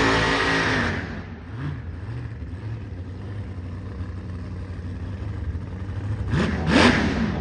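Supercharged Chevrolet V8 drag car running loudly, then dropping to a lower steady rumble about a second in. Near the end it is blipped twice in quick succession, each a sharp rev up and back down.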